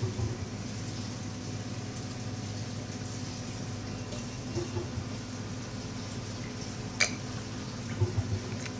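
Reef aquarium's water circulation running: a steady low hum with water trickling and bubbling. A few soft knocks and one sharp click about seven seconds in.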